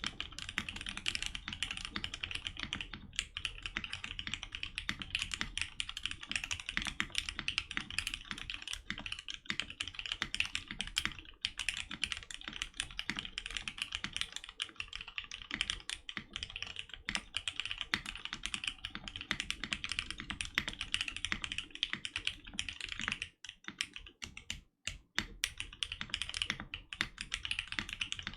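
Mechanical keyboard with retooled Cherry MX Black linear switches mounted plateless, typed on quickly and continuously, the keystrokes clacking densely with a brief pause a little after the middle.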